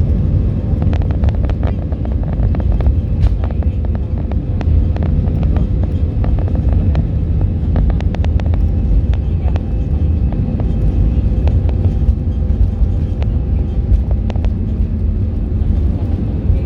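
Steady low rumble of an airliner taking off, heard from inside the cabin, with frequent light clicks and rattles and a faint steady hum.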